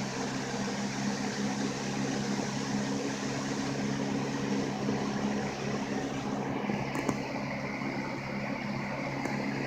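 Lasko Weather Shield 20-inch box fan running steadily on medium speed: an even rush of moving air over a low motor hum.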